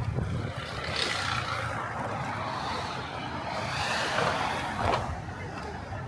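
Road traffic passing on a busy city street: a steady rush of tyres and engines over a low rumble, swelling as vehicles go by about a second in and again around four seconds.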